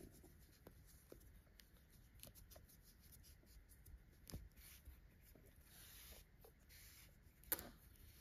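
Very faint rustling and scratchy ticks of hands working yarn into a crocheted piece, with two sharper clicks, about four seconds in and near the end.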